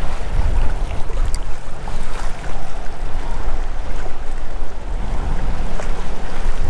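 Wind buffeting the microphone over choppy open water, a steady low rumble with the wash of waves, with a few light clicks.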